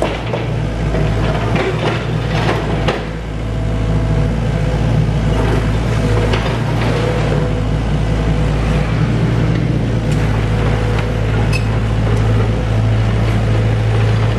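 SANY crawler excavator's diesel engine running steadily under load as the arm works the building, with knocks and clatter of breaking masonry and debris, several in the first three seconds.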